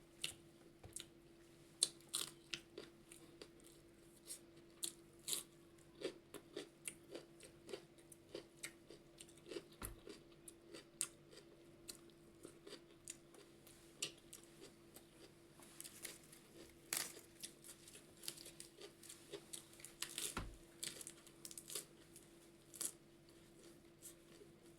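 A person chewing a mouthful of food close to the microphone, with many short, irregular wet clicks and smacks. A faint steady hum runs underneath.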